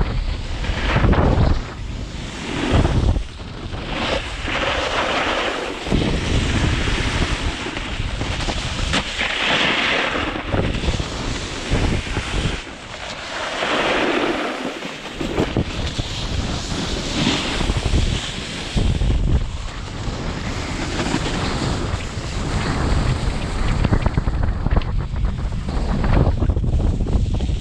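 Wind buffeting the microphone in uneven gusts, a low rumble over a steady rushing hiss.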